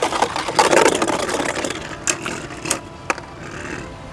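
Two Beyblade Burst tops, Revive Phoenix and Vise Leopard, spinning and scraping against each other in a plastic stadium. The rattle is loud at first and fades, with a few sharp clacks in the second half.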